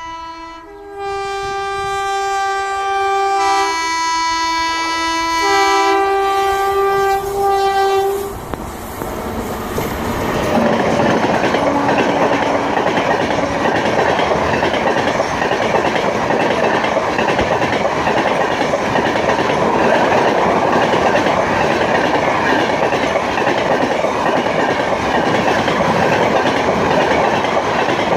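An Indian Railways express locomotive's horn sounding continuously for about eight seconds, switching back and forth between two notes. It then gives way to the loud, steady rush of the train passing at speed, with the clickety-clack of wheels over rail joints.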